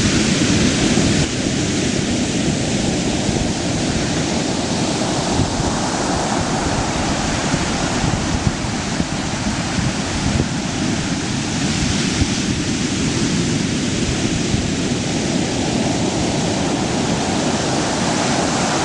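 Ocean surf breaking and churning: a steady, loud rush of crashing waves and white water, with wind rumbling on the microphone.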